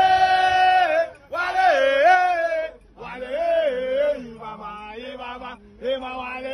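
A voice chanting in long held notes that slide up and down, in four or five phrases with short breaks between them.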